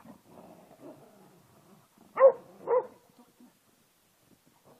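A dog barks twice, about half a second apart, a couple of seconds in.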